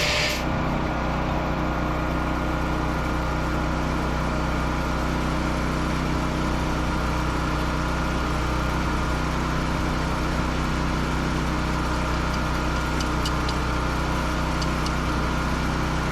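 An engine idling steadily at a constant speed, with a few light ticks near the end.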